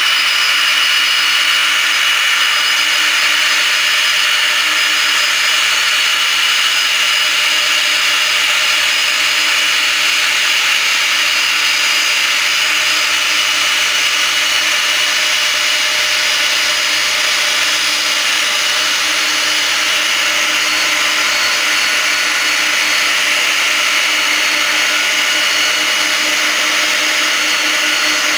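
Boeing 767's jet engines running steadily, a constant loud rush with a high, even whine.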